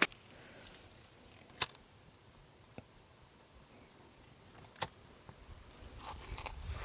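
A few sharp, isolated snaps and clicks of dry twig kindling being handled for a small campfire, a second or more apart. Two short high chirps come about five seconds in.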